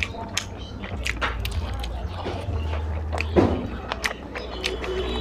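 Close-miked mouth sounds of a person chewing curry and rice: a string of wet smacks and clicks, with one louder, longer wet sound about three and a half seconds in.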